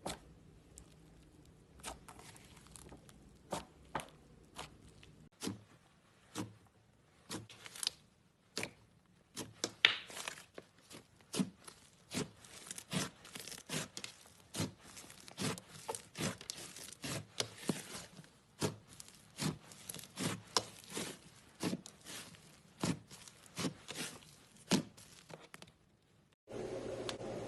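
Slime being squished and stretched by hand, making a run of sharp sticky pops and crackles, one or two a second. About a second before the end it cuts to a steady hiss.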